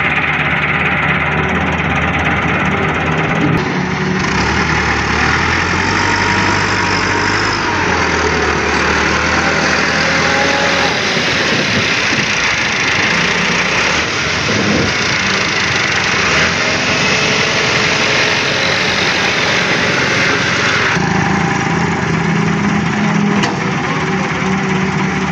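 Heavy diesel machinery running steadily: an excavator at work with tractor engines. The sound shifts abruptly about four seconds in and again near the end.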